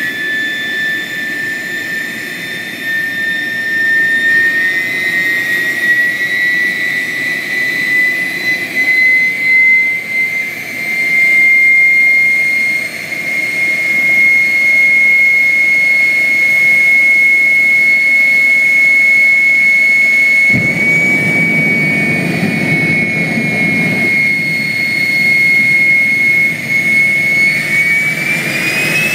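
Turbomeca gas turbine of a Daihatsu Mira jet car running with a high whine that climbs slowly, then holds steady. About twenty seconds in, a deep rumble cuts in suddenly. Near the end the whine rises quickly as flame shows at the exhaust.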